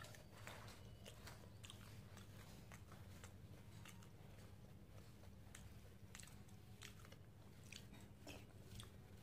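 Faint, close-up eating sounds of a person chewing a mouthful of rice and crisp fried potato (aloo bhaja), with irregular small crunches and mouth clicks.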